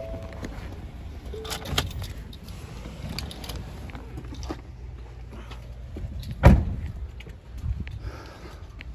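Someone climbing out of a pickup truck: rustling and scattered clicks and knocks, then the door shutting with one loud thump about two-thirds of the way through.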